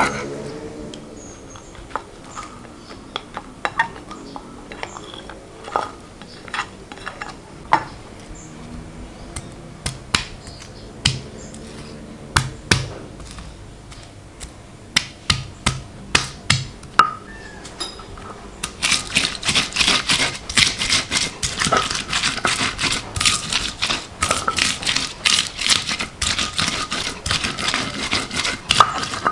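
Spices being ground by hand on a stone: scattered knocks and scrapes at first, then, about two-thirds of the way in, a fast steady run of clicking and scraping.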